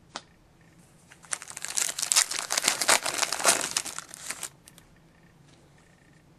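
A crinkly trading-card pack wrapper being handled, crackling for about three seconds after a single short click.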